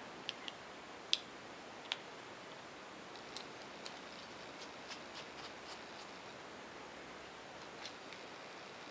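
Small metal clicks and ticks of hardware being handled: a nut being fitted onto an all-thread rod through a rubber hockey-puck foot. A few sharper clicks in the first two seconds, then a run of lighter ticks, over a faint steady hiss.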